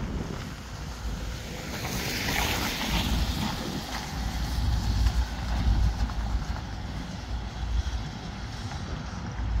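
A van passes close by on a wet road, its tyres hissing through the water, loudest about two to three seconds in and then fading away. Wind buffets the microphone with a low rumble.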